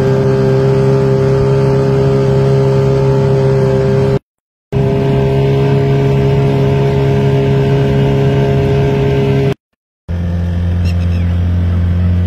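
An engine running steadily at an even speed, cut by two brief gaps of silence about four and ten seconds in. After the second gap its pitch is lower.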